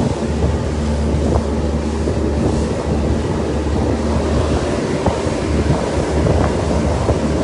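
Passenger boat's engine running at a steady low drone, with wind buffeting the microphone and water rushing past the hull.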